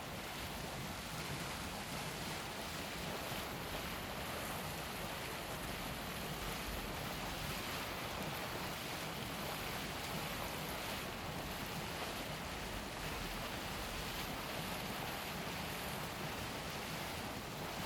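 Boiling water of the Deildartunguhver hot spring bubbling, heard as a steady, even rush of water noise.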